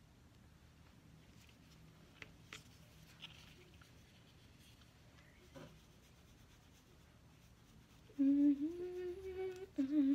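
A girl humming a wavering tune with closed lips, which starts about eight seconds in and is the loudest sound. Before it there are only a few faint clicks, as a makeup compact and brush are handled.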